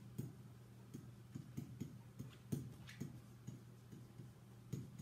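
Pen tapping and scratching on a whiteboard as words are handwritten: irregular short clicks, a few a second, as each stroke and letter is made.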